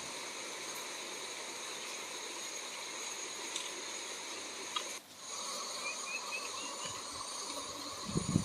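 Steady outdoor drone of insects, a high hiss with several level tones. It breaks off for a moment about five seconds in, and a few short, faint chirps follow.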